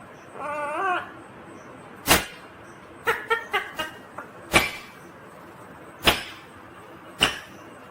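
Ringneck parrot calling: a brief warbling, whimper-like call at the start, then a string of sharp single screeches a second or more apart, with a quick flurry of short chirps about three seconds in.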